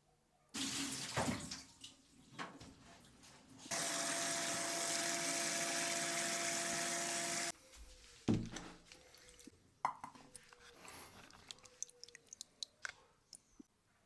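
Water tap running into a sink for about four seconds and then shut off suddenly, after a short splash of water, followed by a knock and light clicks and clinks of handling.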